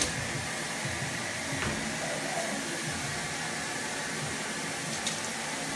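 Water spraying from a handheld shower head: a steady hiss of running spray.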